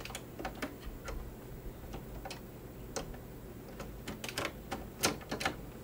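Irregular small clicks and taps of a snap-on presser foot being fitted to a Janome sewing machine's presser-foot shank, with a sharper pair of clicks a little after five seconds in.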